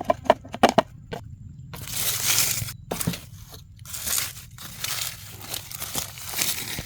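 Dry leaf litter and debris crunching and rustling as they are pushed and crushed, in irregular bursts, after a few sharp clicks about a second in.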